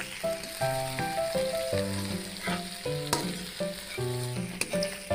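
Chicken gizzards sizzling in hot oil in a wok as a spatula stirs them, with two sharp clicks of the spatula about three and four and a half seconds in. A melody of steady notes plays over the frying.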